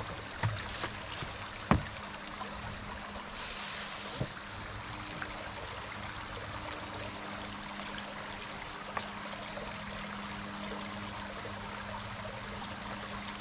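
Shallow woodland stream running over rocks: a steady trickling rush of water. A sharp click a little under two seconds in, with a few fainter ticks.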